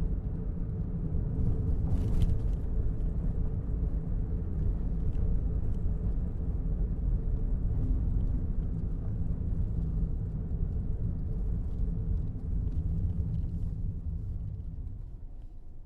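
A car driving: a steady low rumble of engine and road noise, with a brief rattle about two seconds in, easing off near the end.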